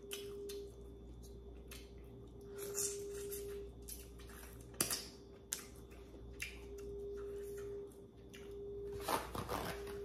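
Close-miked eating of a seafood boil: chewing with scattered sharp clicks, one loud click about five seconds in, and a louder crackling burst near the end, over a faint steady hum.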